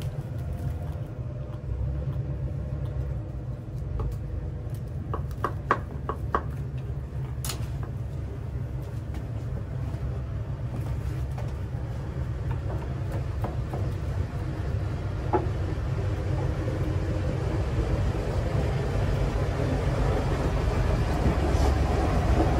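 A motor running steadily with a low drone, getting a little louder toward the end, with a few light clicks and knocks about five to seven seconds in.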